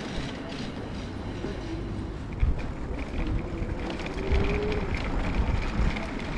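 Street noise heard from a moving bicycle: wind buffeting the microphone with low thumps, road rumble and traffic, and a faint steady whine in the second half.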